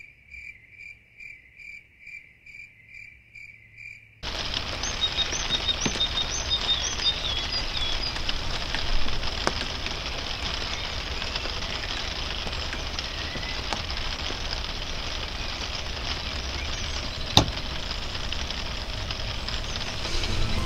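Cricket-like chirping in an even rhythm, about two chirps a second. About four seconds in it cuts off abruptly into a steady rushing noise with a few high chirps early on and occasional faint clicks.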